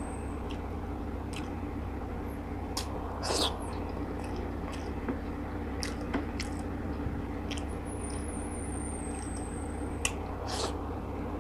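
A person chewing a mouthful of steamed tilapia and rice, with scattered short wet mouth clicks and smacks. The loudest come a little after three seconds in and again around ten seconds, over a steady low hum.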